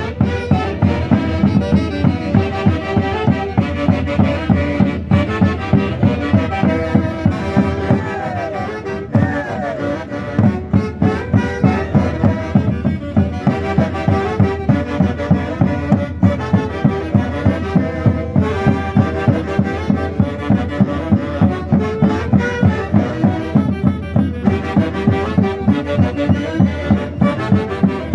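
Andean festive band music, played on wind instruments over a steady, evenly pulsing beat, with a short dip in loudness about eight seconds in.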